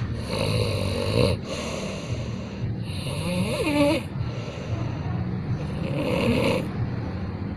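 Heavy snoring, one breath after another, each lasting a second or so, with a pitched rise and fall in the middle of one breath.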